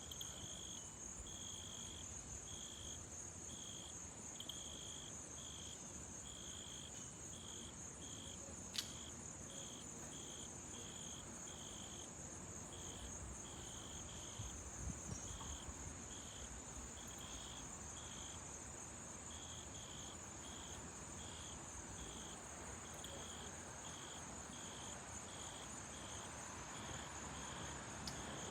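Insects chirping: a steady high-pitched trill with a separate chirp repeating about twice a second.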